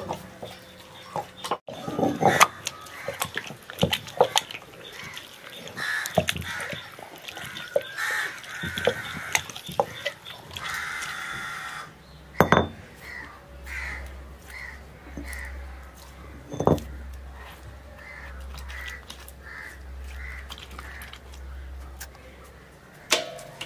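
Stone roller grinding wet paste on a stone slab, with scattered knocks and scrapes of stone on stone. Crows caw repeatedly in the background.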